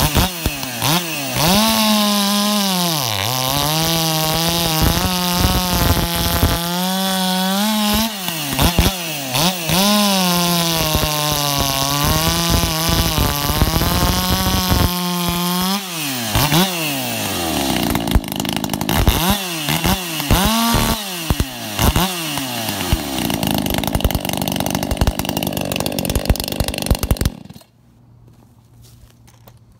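Echo CS-590 Timber Wolf two-stroke chainsaw bucking a log at full throttle, its pitch sagging and recovering as the chain bites under load. It then revs in a series of short blips, settles to a lower steady note, and cuts off suddenly near the end.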